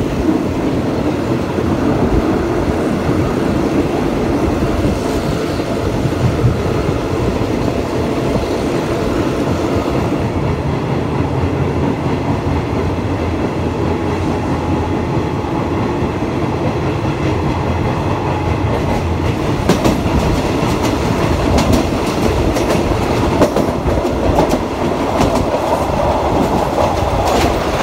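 Passenger train running, heard from an open coach window: a steady rumble of the wheels on the rails with rushing air. From about twenty seconds in, the clickety-clack of the wheels over the rail joints comes through plainly.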